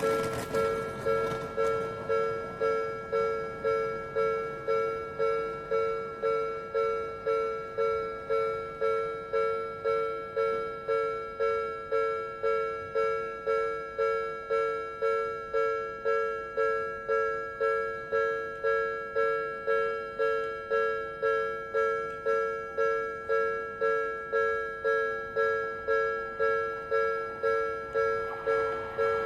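Japanese level crossing warning alarm of the Odakyu type, ringing a steady run of evenly spaced electronic dings, each fading quickly.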